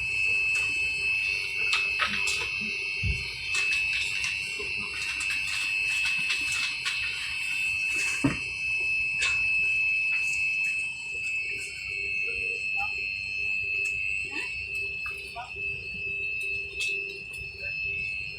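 Airliner cabin ambience: a steady high-pitched whine with scattered clicks and knocks.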